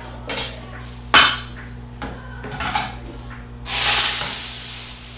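Metal pans clanking, one sharp clank about a second in, then a sudden loud sizzle as boiled instant noodles are tipped from a saucepan into a hot oiled frying pan, fading over about a second and a half.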